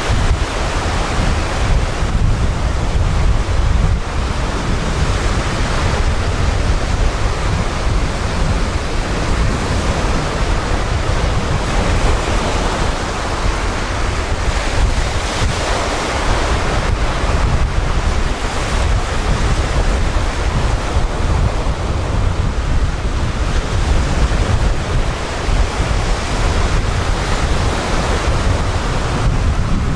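Sea surf breaking and washing up a sand-and-shingle beach in a continuous hiss that swells and eases as each wave comes in. Wind buffets the microphone underneath as a steady low rumble.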